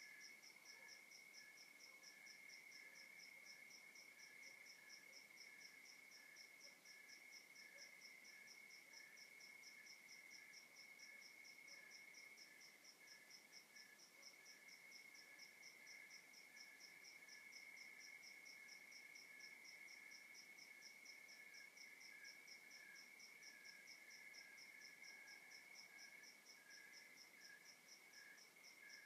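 Several crickets calling together at night, faint: one steady high trill with a second pulsing one beneath it, and a higher chirp repeating evenly about three times a second.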